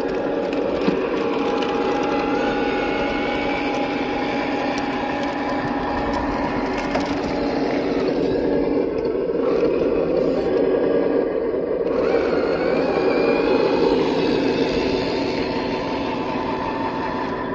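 Simulated truck engine sound from a GT Power multi-function sound unit on a Tamiya King Hauler RC truck, running steadily with a couple of gentle rises in pitch as it drives. Mixed with crackling and snapping as the tyres roll over twigs and pine needles.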